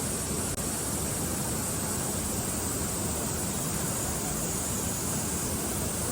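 Steady rushing of a mountain valley stream: an even, constant noise of water flowing over rocks.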